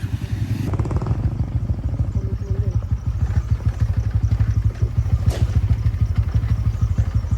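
Motorcycle engine running steadily at low revs, its exhaust beat pulsing evenly. A single sharp click or knock about five seconds in.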